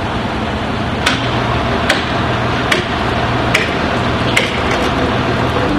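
Five evenly spaced hammer blows, a little under a second apart, over the steady running of a vehicle engine.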